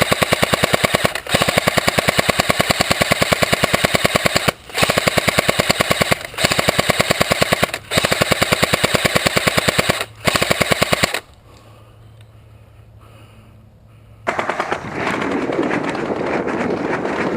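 Airsoft gun firing long full-auto bursts of rapid shots, about six strings broken by short pauses, as suppressive fire swept back and forth. The firing stops about 11 seconds in; a rough, steady rustling noise starts near the end.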